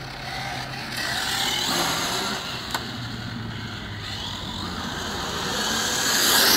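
Radio-controlled touring car running on asphalt, the whirr of its motor and tyres swelling twice and loudest near the end as it comes close. One sharp click about three seconds in.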